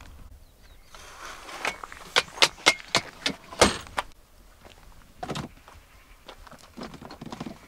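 A quick run of six or seven sharp clicks and knocks over about two seconds, the last the loudest, then a few softer knocks: hard objects being handled.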